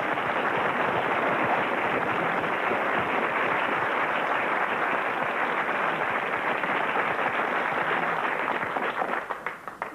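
Theatre audience applauding, a dense steady clatter of many hands that thins out and dies away near the end.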